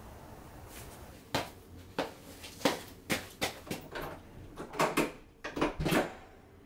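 White sneakers being put on: a string of about a dozen short knocks and scuffs as the soles tap and shuffle on a hard entryway floor, bunched most densely near the end.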